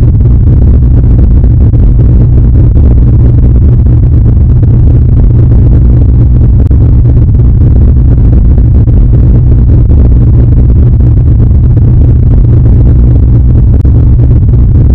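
Loud, steady deep bass rumble, a sound effect pushed to near full level, with little above the low end.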